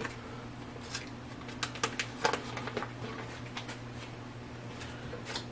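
Scattered light clicks and taps of hand-handled kitchen items, a few close together about two seconds in and one more near the end, over a steady low hum.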